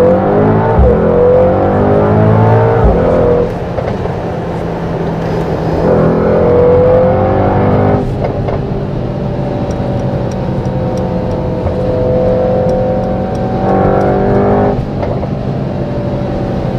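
Mercedes-AMG GT 4-Door Coupé engine, heard from inside the cabin, accelerating hard in Sport Plus. The pitch climbs, drops at a shift about three and a half seconds in, and climbs again. After about eight seconds it settles into a steadier drone at motorway speed, with a short surge a couple of seconds before the end.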